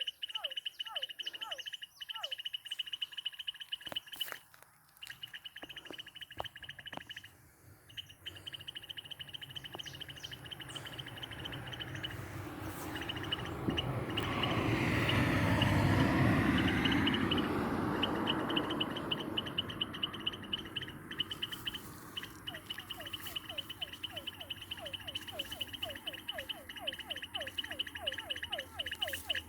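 Chorus of insects and frogs: an insect's steady, rapidly pulsing high trill and repeated short downward-sliding frog calls, coming several a second near the end. A broad rushing noise swells and fades over several seconds midway, masking the trill.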